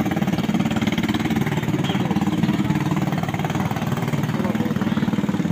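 An engine idling steadily with a fast, even chugging.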